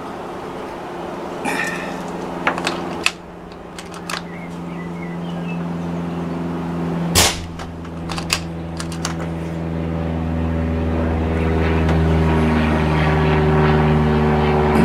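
.22 air rifle fitted with a BSA VC silencer firing one suppressed shot about seven seconds in, a single short sharp crack, preceded by a few light clicks. Underneath, an aircraft engine drones steadily overhead, growing louder toward the end.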